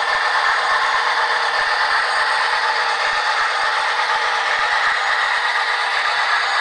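Sound decoder of an HO scale Atlas RS-11 model locomotive playing an Alco diesel engine running steadily through its small onboard speaker, thin and without deep bass, with the model cars' wheels rattling over the track.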